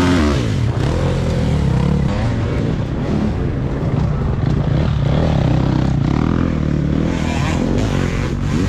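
Enduro dirt bike engines revving under load, their pitch rising and falling with the throttle, with a sharp pitch sweep as a bike passes near the start and again near the end.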